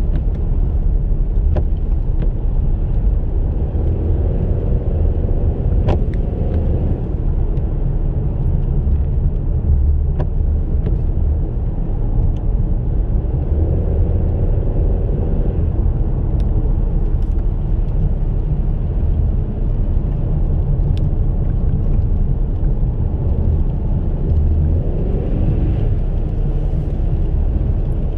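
2016 Ford Mustang driving: a steady low engine rumble with road noise, the engine note swelling three times, and a few faint clicks.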